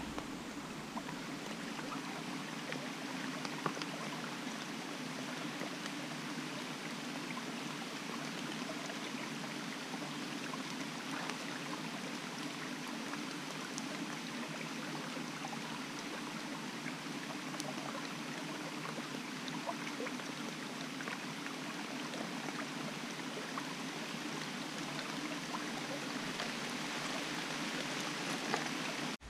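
Steady rush of rain and running water in a forest stream, with scattered small raindrop ticks.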